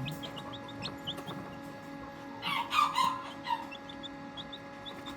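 Young Serama and pheasant-cross chicks peeping: a steady run of short, high cheeps, with a louder cluster of calls about two and a half seconds in. A faint steady hum runs underneath.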